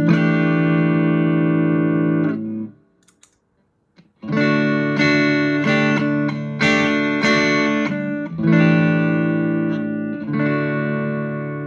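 Electric guitar played through a Vox AC10 amp and a compressor pedal. Sustained strummed chords ring out, break off into a brief silence about three seconds in, then come back with several more strummed chords that ring on.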